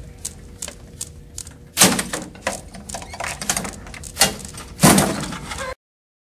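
Clicks and knocks from a student-built chain-reaction machine running through its sequence, with three louder clattering knocks. The sound cuts off suddenly near the end.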